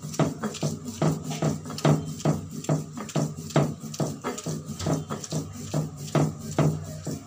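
Stone roller rocked back and forth on a flat Bengali grinding stone (shil-nora), crushing wet thankuni leaves into a paste. It makes rhythmic stone-on-stone knocking and scraping, about two to three strokes a second.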